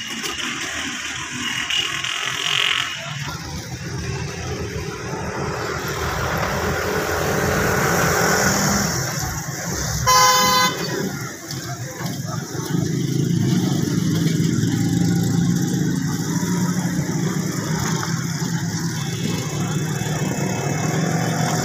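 Road traffic noise with a vehicle engine running steadily, one short horn honk about halfway through, and another horn sounding near the end.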